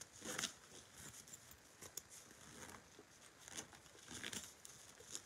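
Faint, scattered rustling and brushing of a fabric craft bag being handled and turned in the hands.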